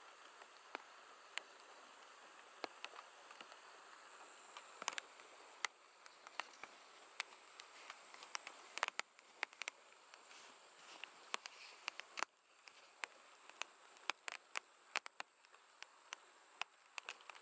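Late-summer night chorus of grass insects: a steady high-pitched trill over a soft hiss of more insects. Many short sharp ticks come at irregular moments throughout and are the loudest sounds.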